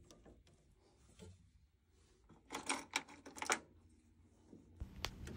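Light clicks and rattles of a rubber expansion vessel hose and its fittings being handled and pushed into place inside a boiler casing. There is a quick cluster of clicks about two and a half to three and a half seconds in, and a single click near the end.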